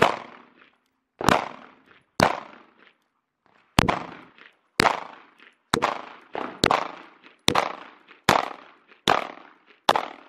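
A 9mm Glock 19 pistol fired in a steady string of about eleven shots, roughly one a second, each crack followed by a short echo. The rhythm quickens slightly towards the end.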